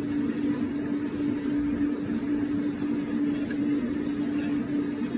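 Corded rotary pet nail grinder running steadily as it files a dog's claws, a constant motor hum with a steady tone.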